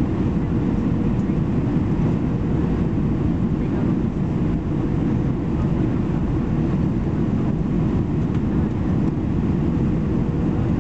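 Steady cabin roar of an Airbus A320-214 on final approach, heard from a window seat over the wing: its CFM56 turbofan engines and the rushing airflow, deep and unbroken, with a faint steady tone above the roar.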